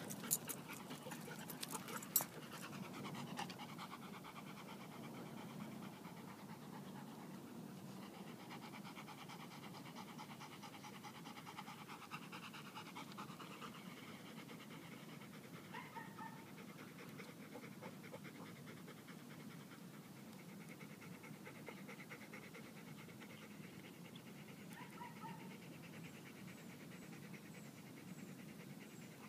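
Golden retriever panting steadily close by. There are two sharp clicks in the first couple of seconds.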